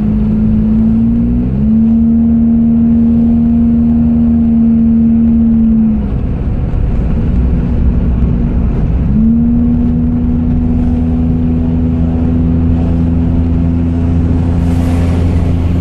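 Car engine and road noise heard from inside the cabin: a steady engine drone that fades about six seconds in and picks up again with a short rise about three seconds later. A brief hiss comes near the end.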